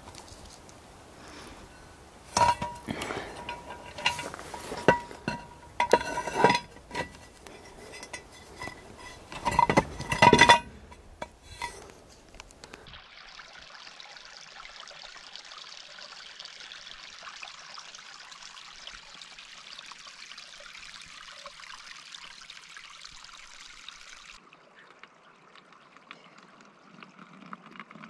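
A series of sharp clinks and knocks with a brief ringing tone, like small metal items knocked together, lasting about ten seconds. Then a steady hiss starts abruptly and cuts off suddenly near the end, giving way to a lower, softer rushing.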